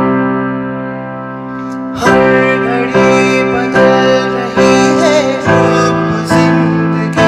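Piano chords played on a keyboard. The first chord is held and fades for about two seconds, then new chords are struck about once a second.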